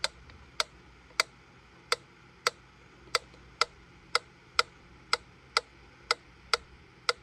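Antique wind-up Maelzel metronome ticking, sharp clicks about twice a second, the beats slightly uneven.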